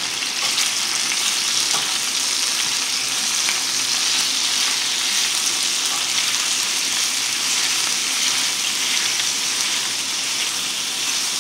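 Strips of chicken breast frying in hot oil in a stainless steel skillet, a steady sizzle, while a wooden spatula stirs and turns them.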